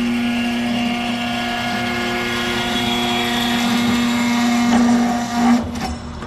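Metal-cutting cold saw running with a steady whining hum as its circular blade cuts through steel tube. The hum stops about five and a half seconds in, followed by a brief clatter.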